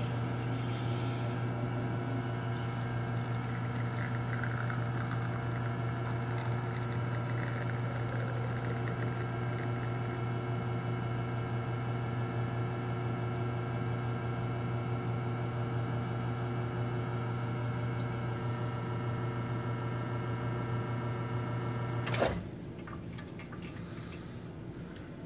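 Rocket R58 espresso machine's rotary pump running at a steady hum as an espresso shot is pulled. About 22 seconds in it stops abruptly with a click as the brew lever is lowered to end the shot.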